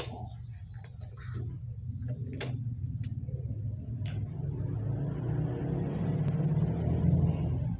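Electric hospital bed motor humming steadily as the bed is lowered back, growing louder and then cutting off at the end, with a few clicks and knocks over it.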